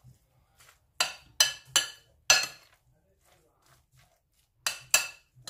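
Metal spoon clinking against a glass mixing bowl while stirring a minced-meat filling: a few sharp clinks, three close together about a second in, one a little past two seconds, and two more near the end.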